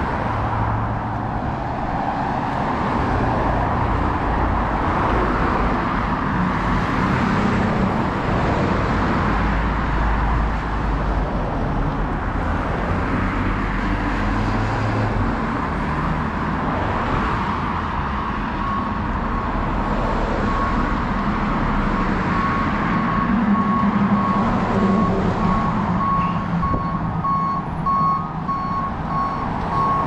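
Steady street traffic, with cars passing and a low engine rumble and tyre noise. About two-thirds of the way in, a garbage truck's reversing alarm starts beeping repeatedly and keeps on, louder toward the end.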